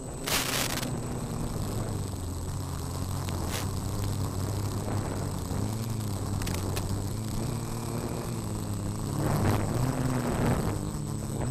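Quadcopter's Turnigy SK3 brushless motors and 8045 props buzzing, the pitch rising and falling as the throttle changes, picked up by the onboard FPV mic. Under it runs a steady high-pitched tone, and a short burst of static comes about half a second in.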